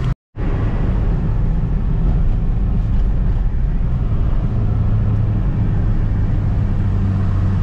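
Engine and road noise heard from inside a moving car, a steady low rumble. The sound drops out for a moment at the start, and a steady low engine hum comes up about halfway through.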